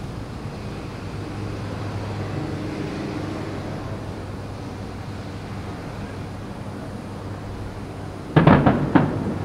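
Distant aerial fireworks: a quick cluster of three or four shell bursts going off together about eight seconds in, over a steady low background rumble.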